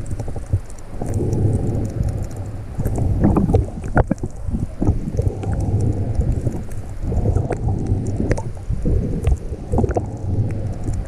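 Muffled underwater water noise against a GoPro on a full-face snorkel mask: a low rushing and sloshing that swells and eases every second or two, with a few sharp clicks.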